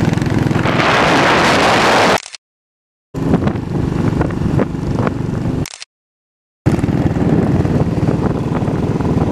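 Motorcycle engine running at road speed, heard from the bike being ridden, with loud wind rush on the microphone about one to two seconds in. The sound cuts out to silence twice, a little after two seconds and again near six seconds, and resumes each time.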